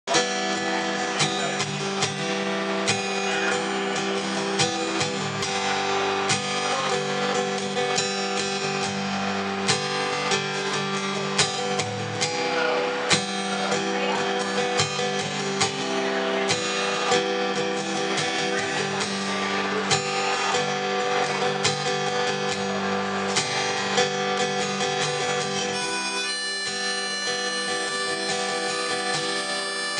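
Acoustic guitar strummed in a steady rhythm with a harmonica in a neck rack played over it, an instrumental passage without singing. Near the end the low guitar strumming thins out while the harmonica's held notes carry on.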